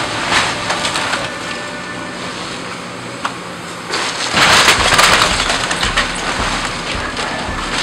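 Wood-frame house being torn apart by a Cat hydraulic excavator: boards and timbers cracking and splintering in crackling bursts, loudest from about four to five and a half seconds in, over the excavator's engine running.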